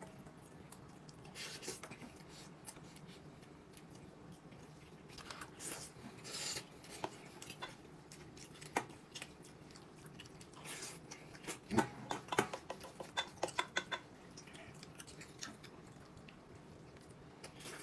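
Tableware handled during a meal: chopsticks and spoons clicking and scraping against bowls and plates in scattered, irregular taps, busiest about twelve seconds in.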